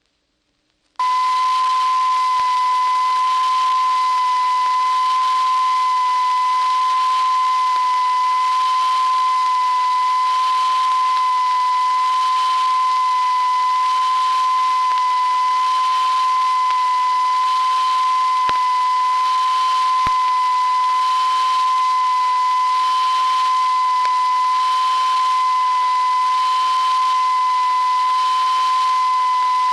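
A continuous, steady electronic tone with faint higher overtones over a light hiss, starting about a second in and holding unchanged.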